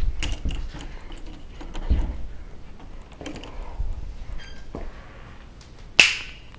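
Handling noise of a handheld camera being swung about, with scattered clicks and low thumps. One sharp, loud click about six seconds in.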